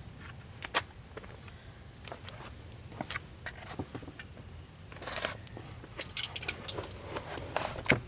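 Scattered light clicks and taps from handling small parts and tools at a car door, with a quick run of rattling clicks from about five to seven and a half seconds in.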